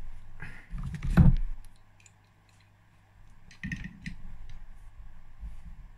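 Metal clinks and knocks of a bearing-puller tube, nut and spanner being handled on a motorcycle engine casing. A loud clatter comes about a second in, then a quiet pause, then a run of smaller clicks as the spanner goes onto the puller nut.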